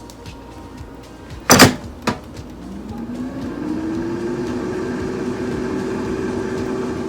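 Air fryer basket shut with a loud clunk, then a lighter click, then the fan motor starting with a hum that rises in pitch and settles into a steady run.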